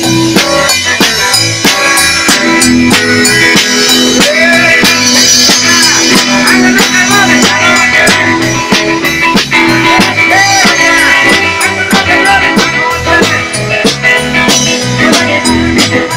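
A rock and roll trio playing live: guitar over a steady drum beat and a walking bass line.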